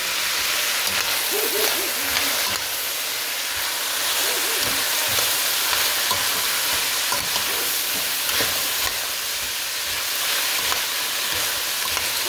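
Diced onion, celery and carrot sizzling steadily as they sauté in a stainless steel pot, with a large metal spoon stirring through them.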